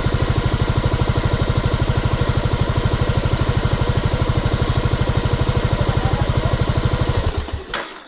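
Motorcycle engine idling close by with a steady, rapid, even pulse, then switched off near the end.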